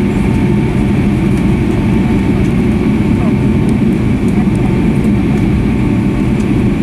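Steady cabin noise of a Boeing 757-200 taxiing, heard from inside: the low rumble of the engines at taxi power with a thin, steady whine above it.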